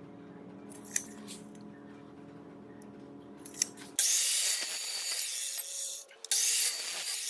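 Aerosol spray can hissing in two long bursts, the first starting about four seconds in and the second just after a brief pause. Before the spraying, quiet background music with a few light clicks.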